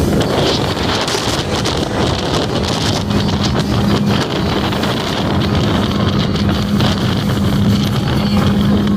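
Motorboat engine running steadily with a constant low hum, under heavy wind rushing over the microphone.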